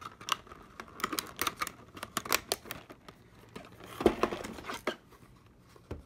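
Clear plastic Sharpie marker case being worked open and handled: irregular crackles and clicks of stiff plastic, with a louder knock about four seconds in.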